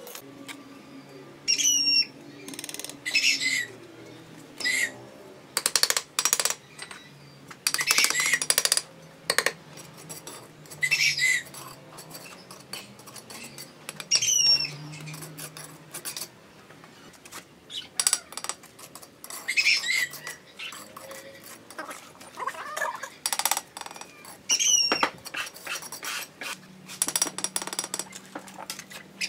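Steel masonry trowel scraping and tapping on clay bricks and wet mortar: clusters of short scrapes and knocks, with brief high squeaks here and there.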